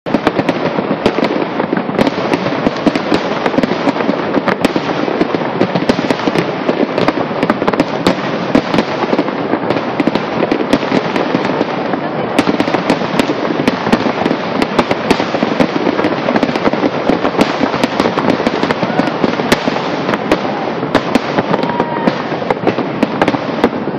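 Fireworks display: a loud, continuous barrage of many bangs, pops and crackles going off close together.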